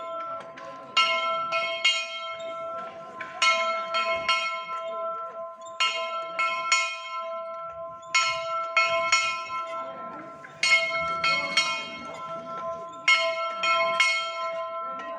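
A metal bell rung to mark weeding time, struck in quick groups of about three strokes roughly every two and a half seconds. Its tone rings on between the strokes.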